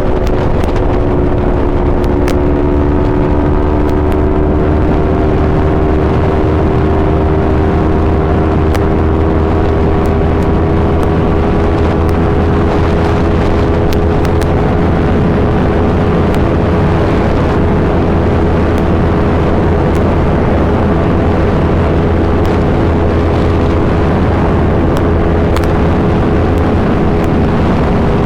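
Yamaha R3's parallel-twin engine through an Akrapovic full exhaust system, running at steady revs. Its pitch rises slightly over the first few seconds, then holds.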